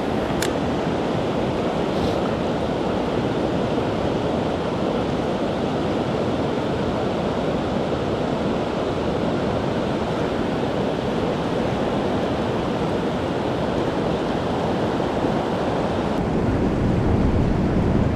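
Kern River water rushing steadily. Wind on the microphone adds a low rumble that grows near the end.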